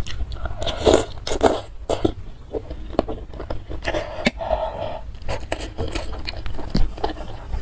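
Close-miked eating sounds from a mouthful of spicy instant noodles and boneless chicken feet: a slurp about a second in, then wet chewing with many small lip and teeth clicks. A metal spoon scrapes in the bowl about four seconds in.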